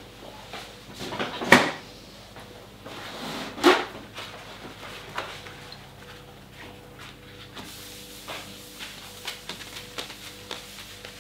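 Two loud, sudden clatters about two seconds apart, then light rustling and small taps as a paper towel is laid on a granite countertop and wiped across it.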